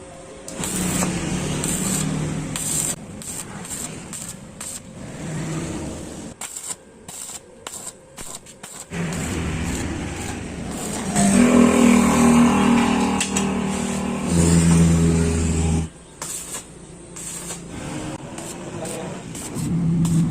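Motorcycle engine running and being revved up and down, with a quieter, broken stretch partway through; it is loudest in the second half.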